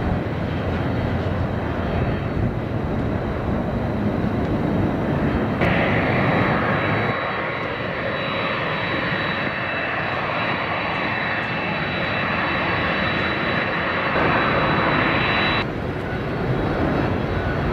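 Boeing 747-400D jumbo jet's four turbofan engines running loud as the airliner moves on the ground and then takes off. A steady high whine over the engine noise starts abruptly about six seconds in and cuts off suddenly about ten seconds later.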